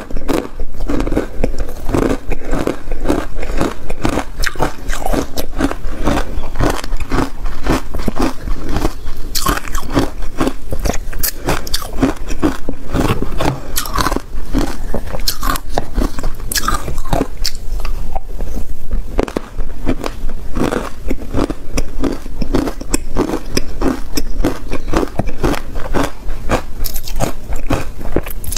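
Hard ice cubes coated in matcha powder being bitten and chewed, a quick, irregular run of sharp crunches.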